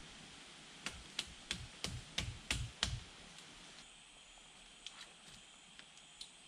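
A quick run of about eight sharp knocks, roughly four a second, then a few faint scattered clicks.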